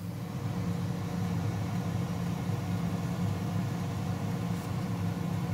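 A steady low mechanical hum, like a motor or fan running, setting in at the start and holding even throughout.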